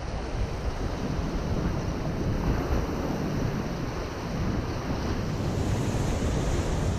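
Wind buffeting the microphone over surf breaking and washing against jetty rocks; a steady, rumbling rush of noise.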